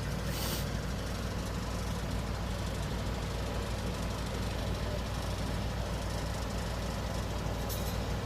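Heavy diesel engine of a works vehicle idling steadily with a low, even drone. A short hiss sounds about half a second in, and a fainter one comes near the end.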